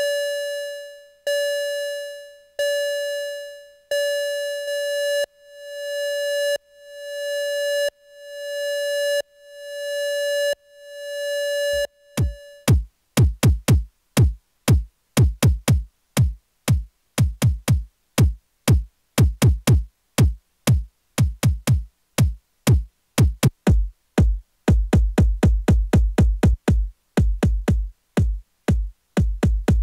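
Eurorack modular synth patched through a vactrol-type opto compressor: first a bright pitched synth note repeating about every 1.3 s. About 12 s in it switches to rapid electronic kick and percussion hits with a deep thump, coming faster and denser near the end, while the compressor's settings are adjusted to change the punch of the percussion.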